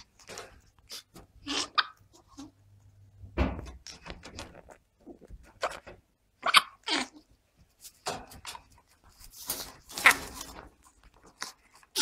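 An animal calling in a string of short squeaks and calls, several sliding down in pitch, mixed with short noisy bursts.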